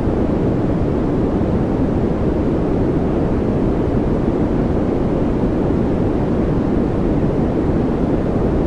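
Continuous white-noise track for focus and relaxation: a steady, unchanging rush, deep rather than hissy.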